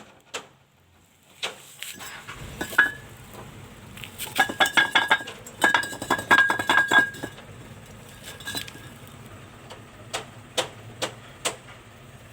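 Fired clay facing bricks knocked together, giving sharp ringing clinks: quick runs of taps in the middle, then single knocks about half a second apart near the end. The clear ring is the sound check for a dense, well-fired brick.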